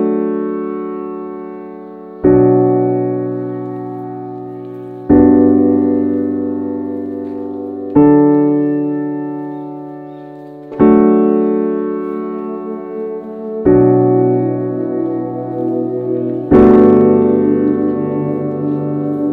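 Background music: slow piano chords, a new one struck about every three seconds and left to ring and fade.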